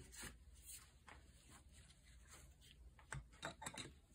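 Near silence, with a few faint light clicks and taps about three seconds in from small parts and tools being handled while a stuck wrist pin is worked out of a chainsaw piston.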